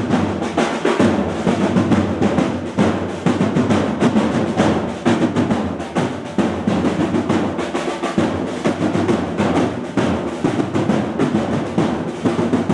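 A corps of marching drums, large wooden-shelled parade drums struck with sticks, playing fast continuous rolls and beats.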